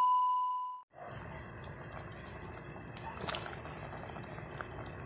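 A steady test-card beep sounds for the first moment and cuts off abruptly, followed by a pot of squid adobo simmering: a steady bubbling with small pops and ticks, and a couple of sharper clicks about three seconds in.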